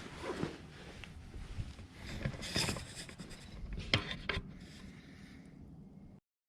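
Hand-tool and metal-part handling on an aircraft engine: rubbing and scraping with a few sharp clicks and knocks, about a second apart at first and then two louder ones near the middle, before the sound cuts off abruptly.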